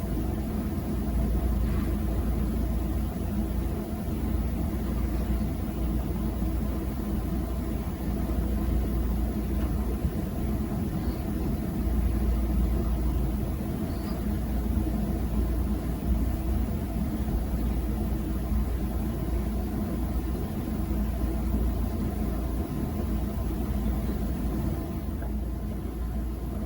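A steady low rumble with a constant hiss, even throughout with no distinct events.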